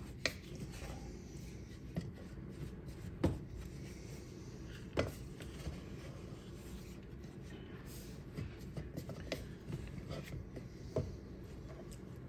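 Wooden spoon stirring a thick cocoa-and-sugar glaze in a stainless steel saucepan: faint scraping, with a few light knocks of the spoon against the pan.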